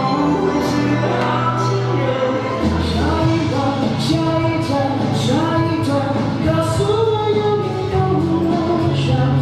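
Music with a sung melody over held bass notes, with short high percussion hits scattered through it.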